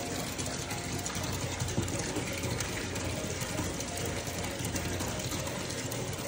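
Water running steadily from a tap into a bathtub, a constant rushing pour that cuts off abruptly at the end.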